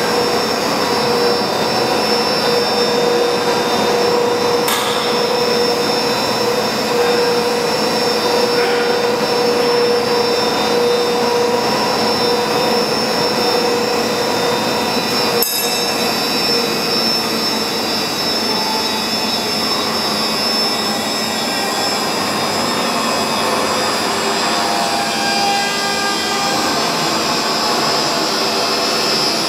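Colliery winding engine running with its large rope drum: a steady mechanical whine carrying several held tones, the pattern of tones shifting in the second half. A sharp click about halfway through.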